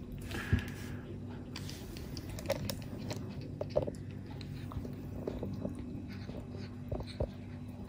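A young kitten suckling kitten replacement milk from a plastic feeding bottle, making scattered wet smacking and clicking sounds at the nipple.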